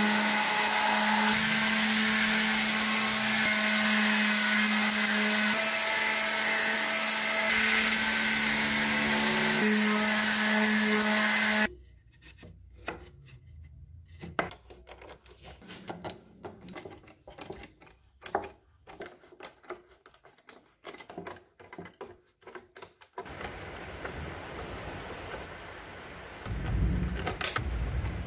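Electric power tool running steadily on wood, with a constant whine, then stopping suddenly about twelve seconds in. After it, light scattered knocks from the wood being handled, and a low thump near the end.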